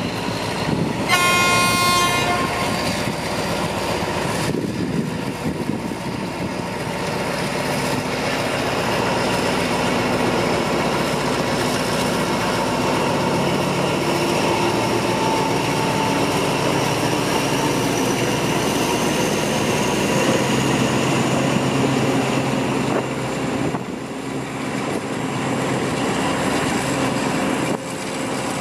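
Diesel locomotive hauling a passenger train sounds one horn blast of about a second, about a second in. Its engine and the coaches' wheels then run steadily as the train pulls slowly into the station, with a faint high whine slowly rising in pitch midway.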